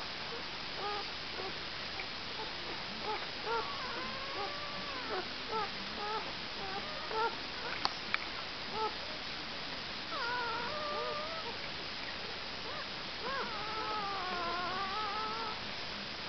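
Newborn Irish Setter puppies squeaking and whimpering: many short high squeaks through the first half, then two longer wavering whines, one about ten seconds in and one near the end. Two sharp clicks a little before halfway.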